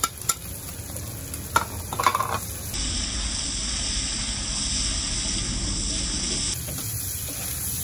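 Pumpkin slices sizzling as they go into a hot wok of frying meat, with a few sharp knocks in the first two seconds. The wok is then tossed, and the food keeps up a steady sizzle.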